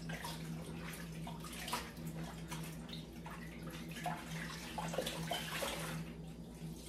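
A cheesecloth being rinsed and squeezed by hand in water in a stainless steel bowl: irregular sloshing and dripping with small knocks against the bowl.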